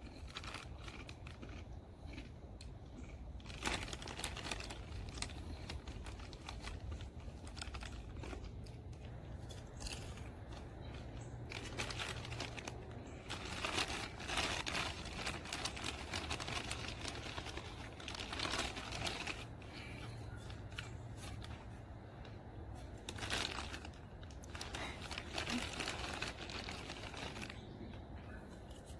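Potato chip bag crinkling in irregular bursts as it is handled, with chips being crunched.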